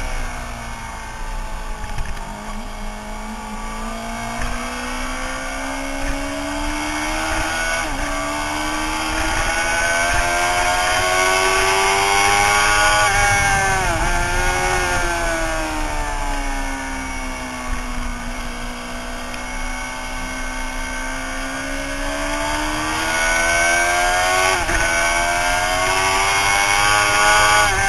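Suzuki sportbike engine heard from onboard, its revs sweeping down and up and down and up again as it runs around the track. Short sharp breaks in the pitch about eight seconds in, around fourteen seconds and near the end mark gear changes.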